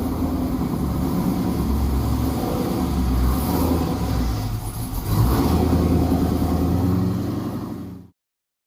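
The Ford Ranger's swapped-in 5.3 L LM7 V8 running through MagnaFlow mufflers and an X-pipe, a steady low rumble with a brief rise in throttle about five seconds in. The sound cuts off suddenly near the end.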